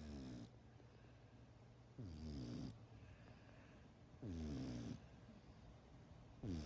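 A cat snoring, one snore about every two seconds, four in all, each falling in pitch.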